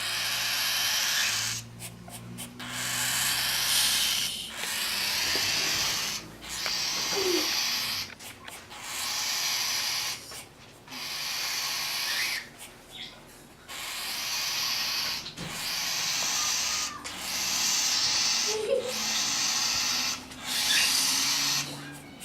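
Baby cockatiel giving a string of raspy begging calls, about ten of them, each lasting a second or two and repeating every couple of seconds.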